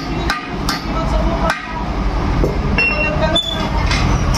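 A hammer striking metal, about five uneven blows, some leaving a short ringing tone, over a steady low rumble of shop noise.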